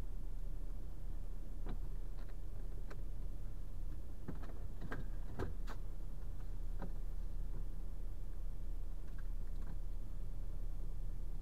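Steady low rumble of an idling lorry engine heard from inside the cab, with a scatter of light clicks and knocks bunched about four to six seconds in.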